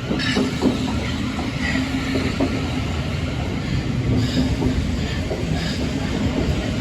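Class 700 electric multiple unit passing through: a steady rumble of wheels on rail with a low hum, and several sharp clacks over rail joints in the first couple of seconds.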